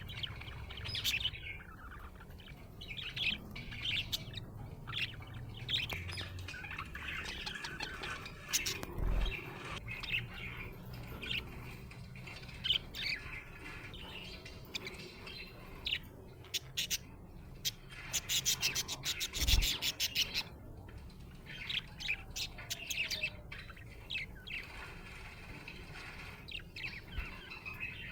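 Budgerigar chirping and warbling in a continuous run of short calls, with a fast run of clicky chatter about two-thirds of the way in.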